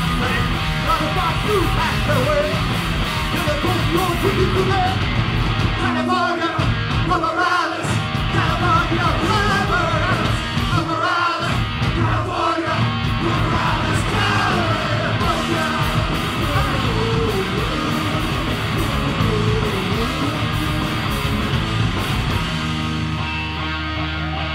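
Loud live rock band (distorted electric guitar, bass and drums) with a singer. The band cuts out for brief stops a few times in the middle, and near the end a guitar chord is held and rings on.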